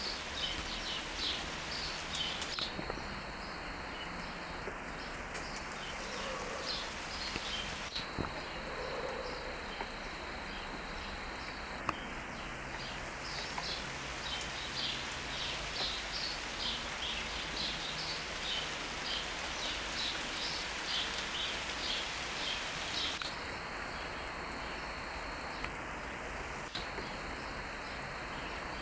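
Steady rain falling on garden shrubs and trees, an even hiss. Over it come repeated short high chirps, and a high, steady buzz that starts and stops several times.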